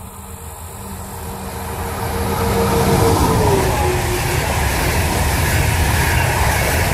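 Electric-hauled EuroCity passenger train with Czech Railways coaches approaching and passing at speed: the rumble grows over the first three seconds, a steady whine drops in pitch as the locomotive goes by about three seconds in, then the coaches roll past with a steady wheel rumble.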